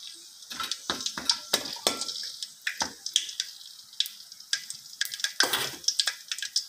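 Whole spices (cinnamon bark, cloves and cardamom) sizzling in hot oil in a stainless steel wok as they are tempered. Irregular sharp crackles and pops over a high hiss.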